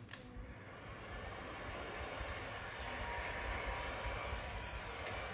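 A hot-air tool blowing steadily with a faint whine, heating the phone's back cover to soften its adhesive.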